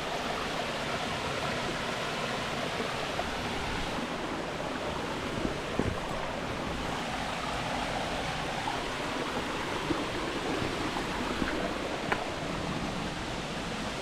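Steady rushing of a small stream and waterfall, with a few faint knocks.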